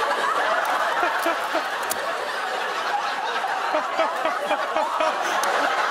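Studio audience laughing steadily, many voices at once.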